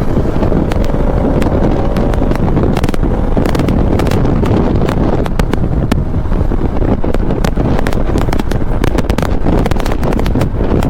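Wind buffeting the microphone on a moving motorcycle, loud and continuous, over engine and road noise, with frequent crackles from the wind on the mic.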